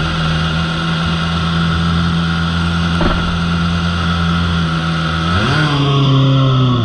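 Porsche RS Spyder LMP2's V8 racing engine running at a steady low idle. About five seconds in, the revs rise quickly and hold at a higher steady note. A single click comes about three seconds in.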